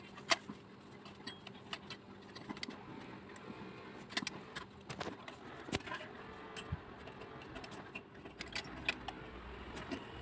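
Scattered small clicks, taps and metallic rattles of hands fitting a replacement thermal fuse and its wires back into place inside an electric rice cooker, over a faint steady hum.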